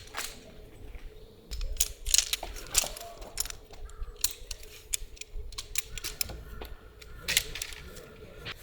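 Irregular sharp clicks and knocks of camping gear being handled while a camp is set up, some coming in quick clusters.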